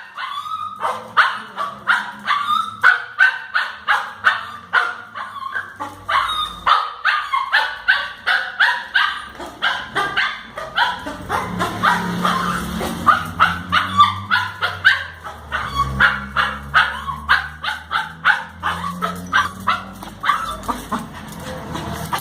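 A dog barking and yipping over and over in short high barks, about three a second, without pause: the agitated barking of an anxious dog. A low hum runs underneath in the second half.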